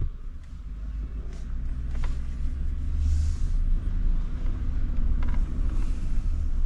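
Car driving: a steady low rumble of engine and road noise that builds over the first few seconds, with a short knock at the start and a few faint rattles.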